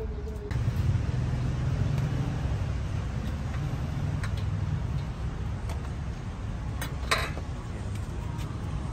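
A motor vehicle's engine running close by in street traffic, a steady low rumble and hum. A few light clicks sound over it, one sharper about seven seconds in.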